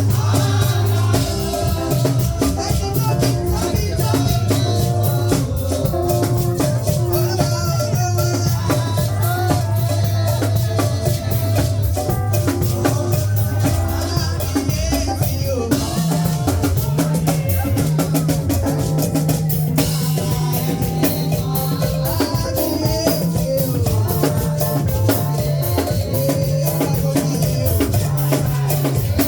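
Music with a drum kit and a steady, sustained bass line under several held melody notes.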